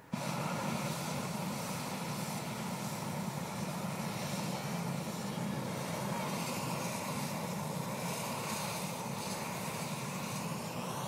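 Hot-air balloon propane burners firing in a long, steady roar as the crew tries to lift the heavily loaded balloon off the ground.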